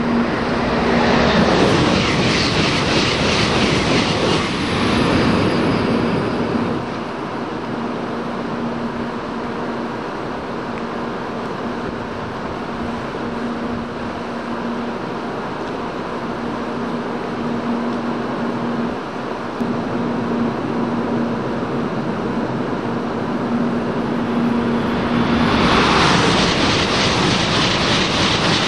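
A steady whirring noise with an on-and-off low hum, then, from about 26 seconds in, a Shinkansen bullet train passing at speed on the through track: a loud rising rush of air and wheel noise. A louder rush of noise also fills the first few seconds.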